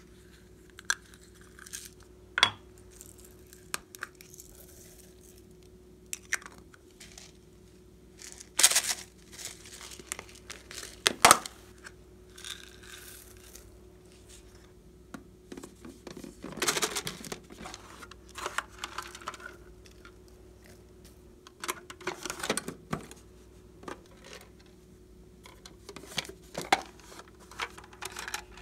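Hands handling slime, its plastic containers and toppings: scattered sharp clicks and taps, with short crinkling, rustling bursts.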